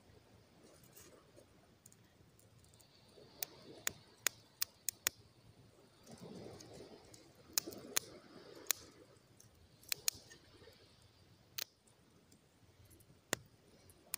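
Small wood campfire crackling: irregular sharp pops, a handful in quick succession about four seconds in and more around eight to ten seconds, over a soft rushing background.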